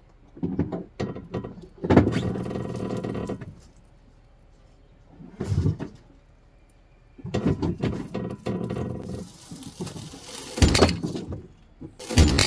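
A car slipping off its jack: several bursts of creaking and groaning as it shifts, then two heavy thuds near the end as it drops onto the ground.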